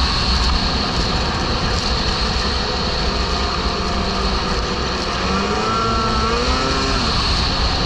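Snowmobile engine running at steady cruising speed, with a constant rush of track and wind noise. The engine note rises and falls briefly about five seconds in.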